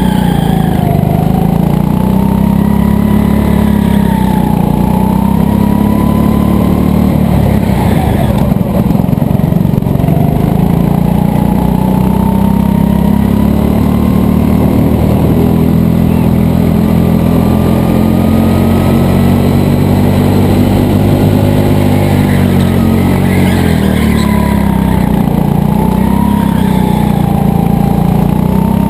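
Go-kart engine running hard under the driver's seat, its pitch falling and climbing again and again as the kart slows for turns and accelerates out of them.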